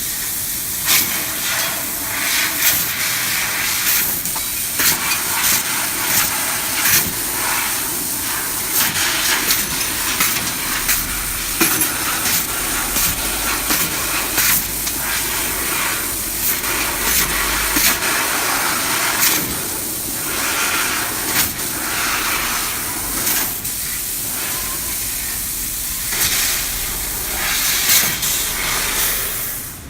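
Fiber laser cutting machine cutting thin stainless steel sheet: a continuous hiss of gas jetting from the cutting head, swelling and easing from moment to moment, broken by many sharp clicks and ticks.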